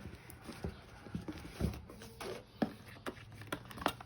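A cardboard phone box being handled and opened by hand: a string of irregular light knocks, taps and scrapes.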